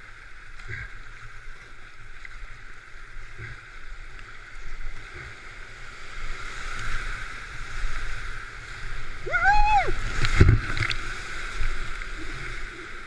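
Rushing river whitewater around a kayak, with paddle strokes splashing, as the boat runs a rapid. A short whooping yell rises and falls about nine seconds in, followed by a loud splash and thump about a second later.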